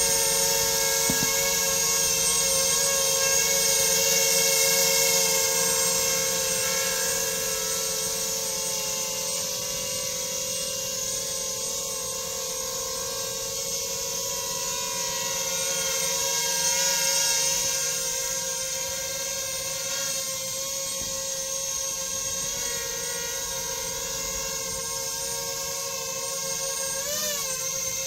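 Tarot Mini multirotor's electric motors and propellers in flight: a steady high whine that swells and fades slowly, with a brief wobble in pitch near the end.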